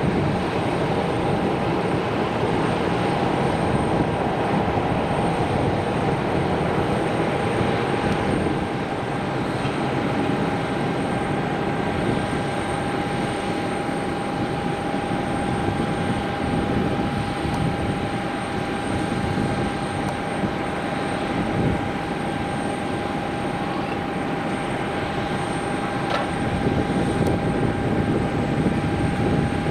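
Steady aircraft noise on an airport apron beside a parked Embraer 175 jet: an even rushing hum with a constant high whine that does not change, and a few faint clicks near the end.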